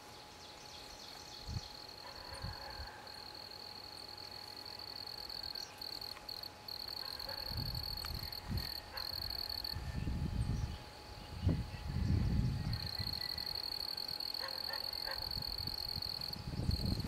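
Insects trilling in the grass: a steady high-pitched buzz that breaks off and starts again several times. Low thumps come on the microphone in the second half.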